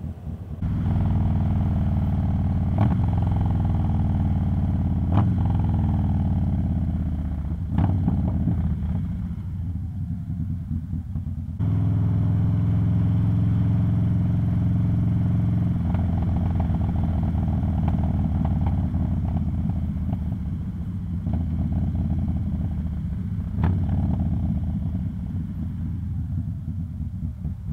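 Harley-Davidson Dyna Low Rider S V-twin engine pulling away and accelerating up through the gears, with three upshifts over the first eight seconds. It then eases off, picks up again and holds a steady cruising speed.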